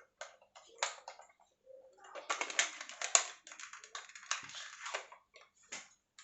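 Handling and loading a Nerf blaster with foam darts: a run of small plastic clicks and rattles, thickest in the middle.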